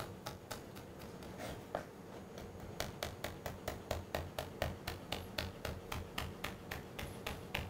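Chef's knife chopping a red chilli finely on a chopping board: a few uneven knife taps at first, then a steady rhythm of about four to five taps a second from about three seconds in.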